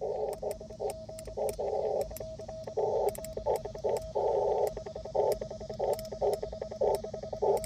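Morse code on a ham radio transceiver: a rapid on-off keyed tone squeezed into the radio's narrow band, with sharp clicks all the way through.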